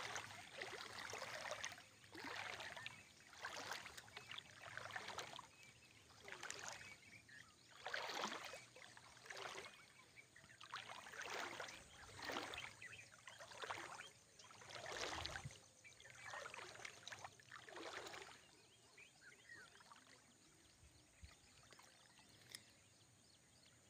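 Shallow water sloshing and splashing with each step as someone wades through a flooded field, about one swish a second, stopping about 18 seconds in.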